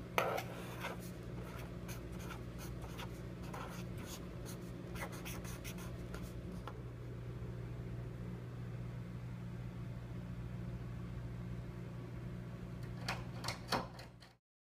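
Black marker pen scratching on a paper sticker label in many short, quick strokes, over a steady low hum. The strokes stop about seven seconds in and return briefly near the end before the sound cuts off.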